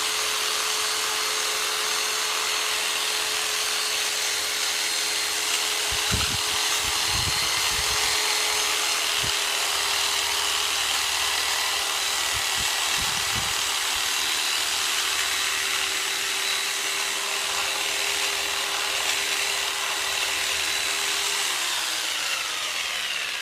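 Jigsaw converted into a percussion massager running steadily, a constant electric-motor whine with the reciprocating drive buzzing, and a few low thuds along the way. It winds down and stops near the end.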